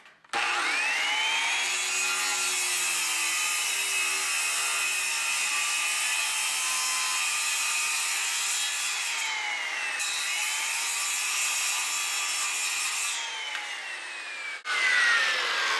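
Handheld circular saw spinning up and cutting steadily along a strip of Formica-laminated particleboard in a forward pass, then winding down with a falling whine near the end.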